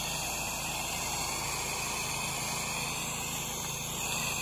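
Pressure washer wand spraying a stream of water onto house siding: a steady hiss, with the washer's gas engine humming steadily underneath.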